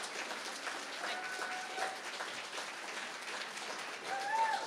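Audience applauding, with short voices calling out over the clapping about a second in and again near the end.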